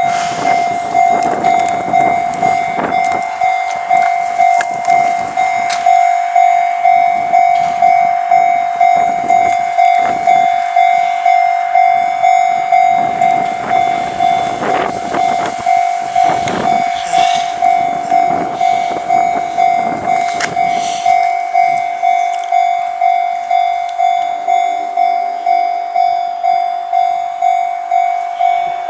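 Level crossing warning bell on the Izu-Hakone Railway Sunzu Line, switching on suddenly and then ringing steadily with its repeated electronic clang, about one and a half strikes a second. For roughly the first twenty seconds a rumbling, clattering noise runs under it.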